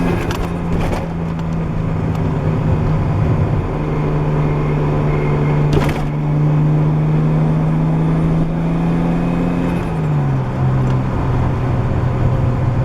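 Nissan RB20DET turbocharged straight-six running through a gutted catback exhaust while the car is driven, holding a steady note, then dropping in pitch about ten seconds in as the revs fall. A couple of brief clicks are heard, one near the start and one about six seconds in.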